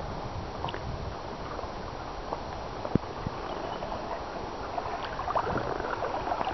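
Water washing and gurgling along the hull of a canoe under tow, a steady hiss with a few small splashes, with wind rumbling on the microphone.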